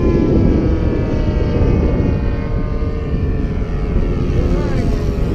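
Engine of a large radio-control model airplane running loudly and steadily in flight, with a broad low rush of noise under its tone.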